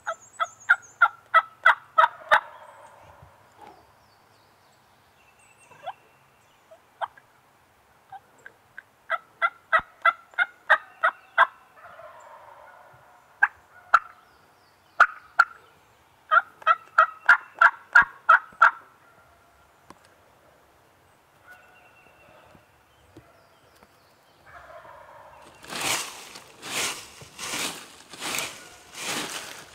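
Wild-turkey yelping in three runs of about nine or ten rapid yelps each, every run lasting a couple of seconds, with a few single yelps between. Near the end, loud rustling and crunching in dry leaves.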